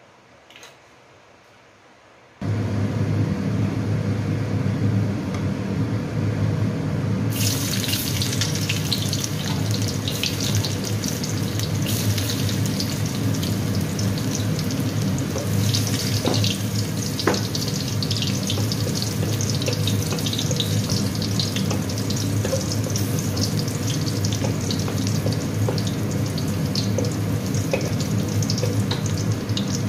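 A steady low hum starts suddenly about two seconds in. From about seven seconds in, sliced garlic sizzles and crackles steadily in hot oil in a wok.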